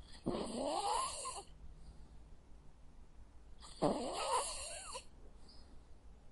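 Sleeping dog snoring: two snores about three and a half seconds apart, each a little over a second long with a pitch that rises and falls.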